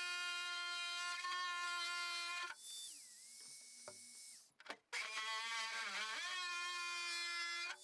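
An electric power tool's motor running at a steady whining pitch. It stops abruptly about two and a half seconds in, then runs again from about five seconds, its pitch dipping briefly as it takes load, and cuts off near the end.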